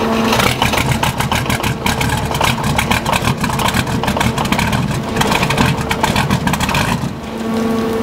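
The freshly rebuilt VM/BMW D190 marine diesel engine fires up and runs roughly, with an uneven clattering beat. Near the end it settles into a steadier, even hum. The owner puts the poor running down to a leaking shaft seal at the front of the injection pump.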